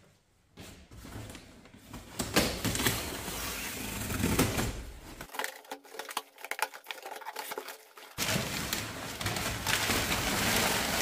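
A large cardboard box being opened by hand, its flaps scraping and bending, with crumpled brown packing paper rustling and crinkling as it is pulled out.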